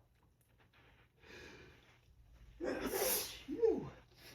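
A person's allergy sneeze set off by pollen: a breath drawn in about a second in, then a forceful sneeze with a voiced tail that slides down in pitch.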